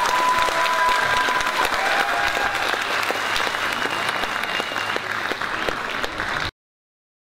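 A large crowd of schoolchildren applauding, dense clapping with a few long high-pitched shouts over it. It cuts off suddenly near the end.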